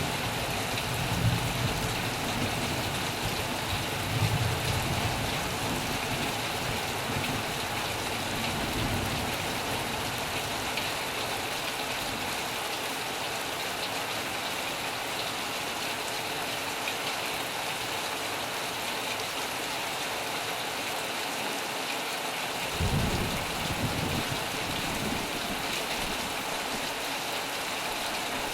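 Heavy rain falling steadily on a metal roof, with low rumbles of thunder rolling through near the start and again near the end.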